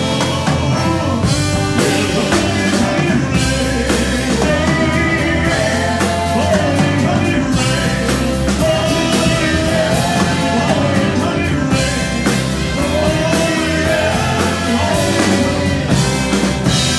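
Live rock band playing a ballad: drum kit, electric bass and guitar with a wavering lead melody line on top.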